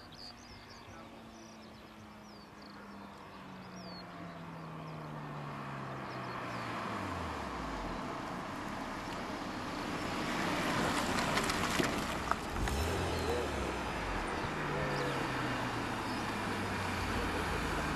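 Honda S2000 inline-four engines as the roadsters drive past. One engine note falls steadily in pitch over the first eight seconds while the sound grows louder. The loudest part comes about ten to thirteen seconds in, a rush of engine and tyre noise. A second engine note falls in pitch near the end.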